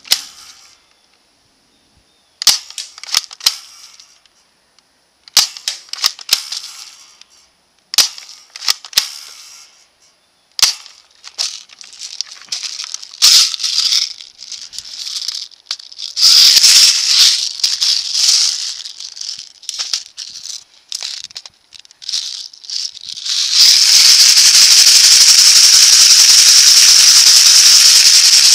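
Spring-powered airsoft rifle firing single shots, each a sharp crack, with a few seconds between them, often in quick pairs or triples. Further on the sounds become a busier clatter. In the last few seconds a continuous loud rattling noise takes over.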